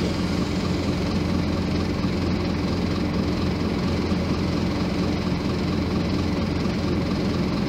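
Scania K270IB bus's rear-mounted diesel engine idling steadily at an even low pitch, heard from inside the bus cabin.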